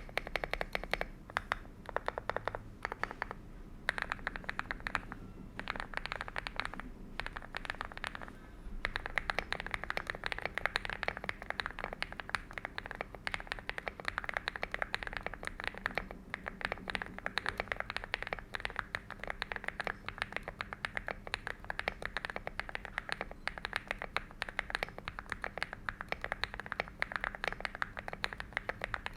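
Typing sound test on a Hi75 C Pro mechanical keyboard: a full-foam cast-aluminium case with KTT Coconut switches and translucent PC MAO keycaps, giving a deep keystroke sound. Keystrokes come in short bursts for the first eight seconds or so, then turn into fast, near-continuous typing.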